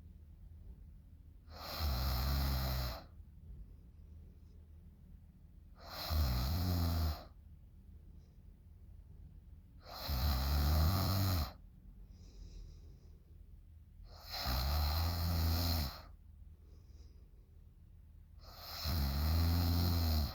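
A young woman snoring in deep sleep: five snores about every four seconds, each lasting just over a second, with faint breathing between them.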